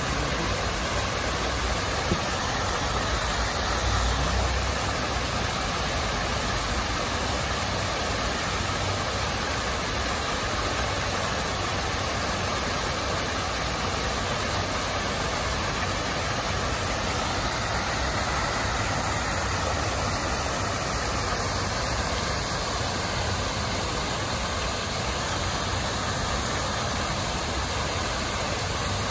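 Water cascading steadily over an artificial rock waterfall, a continuous rushing splash.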